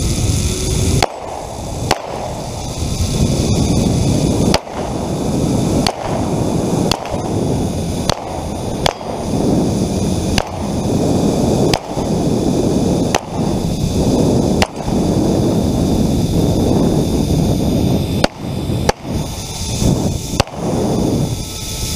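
Semi-automatic pistol fired a dozen or so times, single sharp shots spaced about one to two seconds apart, over a steady rushing noise of the ride down the zip line.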